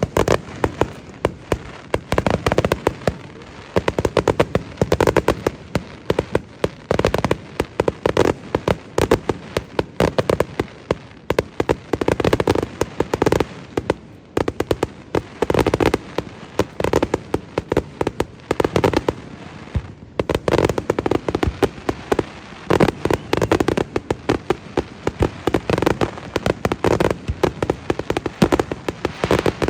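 Fireworks display: a dense run of rapid bangs and crackling many times a second, easing only briefly a few times.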